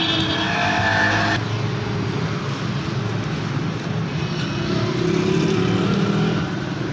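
Steady low hum and background noise, with a brief higher-pitched sound in the first second and a half.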